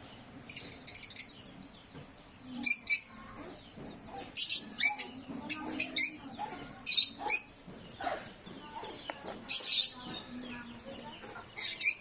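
Lovebirds giving short, shrill calls in quick bursts, one every second or two.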